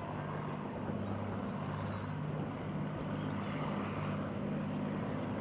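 Avro Lancaster bomber in flight, its four Rolls-Royce Merlin piston engines making a steady low drone.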